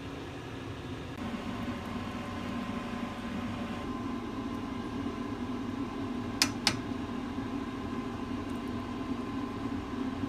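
A kitchen appliance running with a steady mechanical hum that grows a little louder about a second in. Two sharp clicks a quarter of a second apart come about six and a half seconds in.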